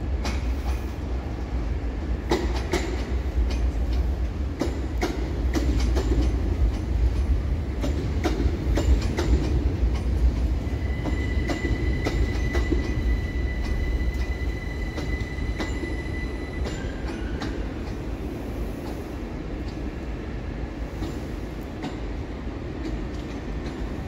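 Gatwick Express Class 387 electric multiple unit running past over pointwork: a steady low rumble with irregular clicks and clacks of wheels over rail joints and points, and a high steady wheel squeal from about ten to seventeen seconds in. The sound is loudest in the middle and eases towards the end.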